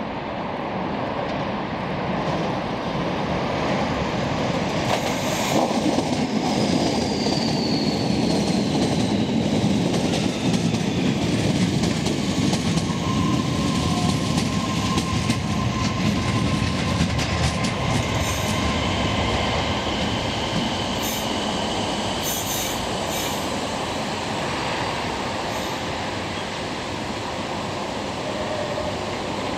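Kobe subway train running, a steady rumble of wheels and motors that swells slightly and then eases off. A few faint high wheel-squeal tones come and go, one falling in pitch early on and another held higher up later.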